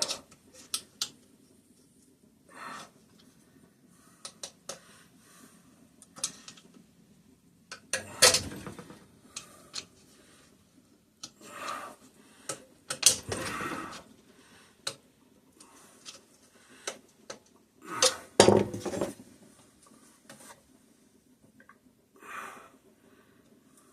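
Steel snap ring and snap ring pliers clicking and clinking irregularly as the ring is worked out of its groove on an engine crankshaft, with louder metal clatters about 8, 13 and 18 seconds in.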